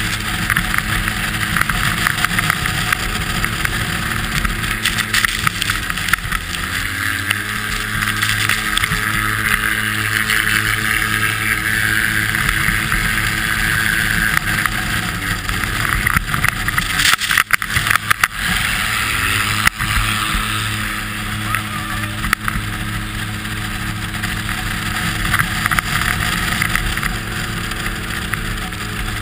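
Polaris RZR 800 S side-by-side's twin-cylinder engine running hard at speed, heard from onboard. The engine note dips and comes back about six seconds in and again around seventeen seconds, with a short cluster of knocks and rattles around seventeen to eighteen seconds.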